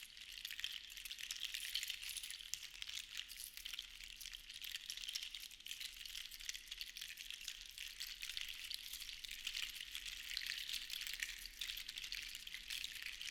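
Many small seashells rattling and clattering against each other in a dense, steady patter of tiny clicks that swells and eases gently.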